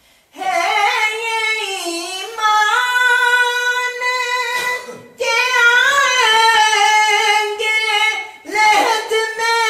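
A man's high-pitched voice singing a naat unaccompanied, in long held, ornamented phrases with brief breaks for breath.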